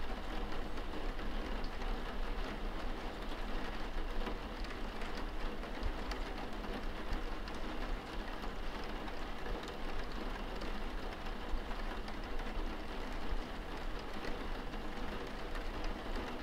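Steady moderate rain, a dense even patter of countless drops with a low rumble underneath.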